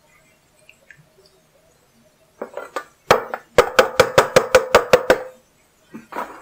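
A plastic colander is knocked rapidly against the rim of a stainless steel saucepan to shake boiled potatoes and carrots into it. A brief clatter comes first, then about ten quick knocks in two seconds, each with a short metallic ring from the pan.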